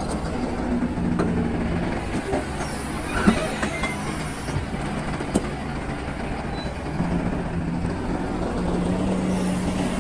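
DLC 225 excavator running steadily while working rock, its engine and hydraulics making a droning hum that grows stronger about seven seconds in, with a few sharp knocks.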